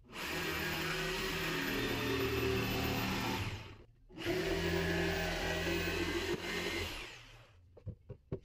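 Corded jigsaw cutting a round hole through a plywood panel. It runs for about three and a half seconds, stops briefly, then runs again for about three seconds and winds down.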